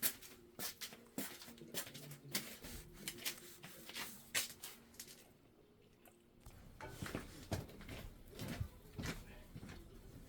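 Scattered irregular clicks and knocks, as of objects being handled and set down, broken by about a second of near silence midway.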